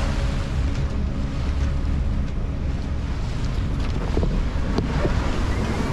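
Wind buffeting the microphone over the steady rush of sea water along the hull of a sailing yacht underway.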